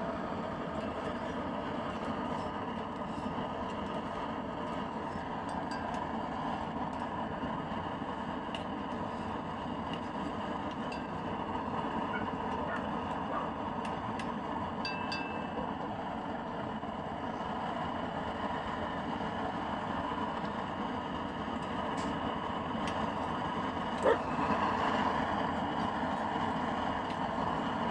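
Homemade used-oil burner, its combustion chamber made from a refrigerator compressor shell, burning with a steady rushing noise of flame and forced air. A single sharp knock comes about four seconds before the end.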